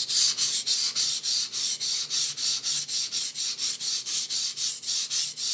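Moritaka mini nakiri's blue steel edge stroked back and forth on a wet 320 grit Nubatama Bamboo waterstone: a strong abrasive scrape repeating evenly, about four strokes a second.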